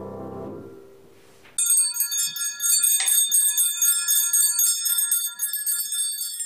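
A cluster of small hand bells shaken continuously, starting abruptly about a second and a half in with rapid, high, ringing strikes. A stretch of music fades out just before.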